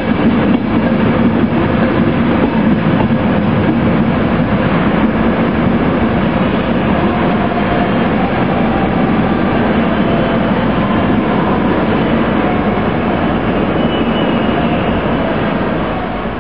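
An InterCity 225 electric train with Mark 4 coaches departing and rolling past along the platform: a steady, loud rumble of wheels on rail with a low hum. The sound eases off near the end as the tail of the train draws away.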